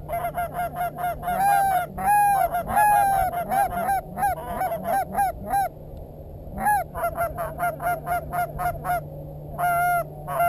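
Canada geese honking and clucking in quick runs of short calls, about three or four a second, with a brief pause about six seconds in and another near the end.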